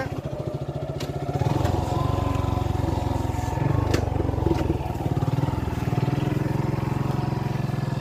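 Motorcycle engine running at low speed, steady, getting louder about a second and a half in as it comes up the dirt track.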